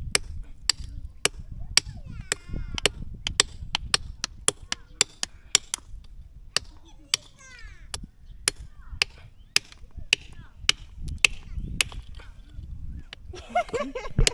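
Sharp, irregular knocks of a hammer and a hand-held stone striking spider conch shells, about two a second, as the shells are broken open to get the meat out.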